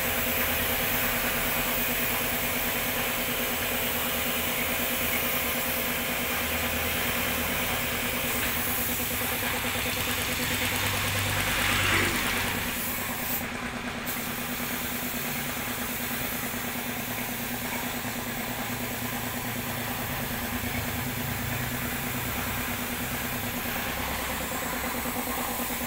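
Steady hiss of paint being sprayed onto a steel frame, over a steady motor hum.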